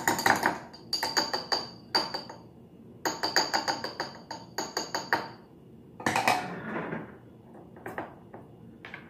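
Metal spoon clinking against glass, in quick runs of light taps with a faint ring as egg spread is spooned into a glass jar, with a duller scrape about six seconds in.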